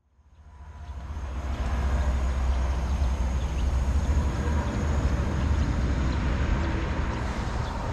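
A vehicle driving on the road: steady low rumble of engine and tyre noise, fading in over the first two seconds and then holding level.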